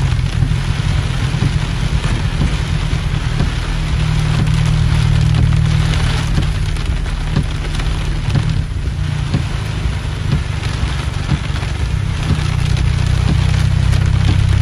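Heavy rain pelting a car's windshield and roof, heard from inside the car, with scattered sharper drop impacts over a deep steady rumble.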